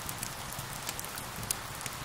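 Steady hiss of rain with a wood fire crackling and popping over it in irregular sharp clicks, one louder pop about three-quarters of the way through.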